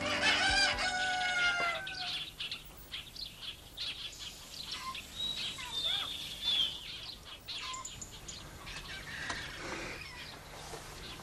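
A rooster crows once, about a second and a half long, followed by scattered short bird chirps.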